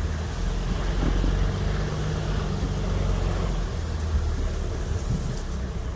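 Car engine running as the vehicle drives, a steady low rumble with road noise, with a few faint ticks about four to five seconds in.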